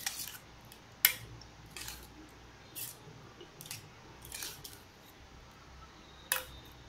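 A steel spoon stirring fish pieces through a thick masala marinade in a stainless steel bowl. There are a few sharp clinks of spoon against bowl, the loudest about a second in, with soft wet scrapes between them.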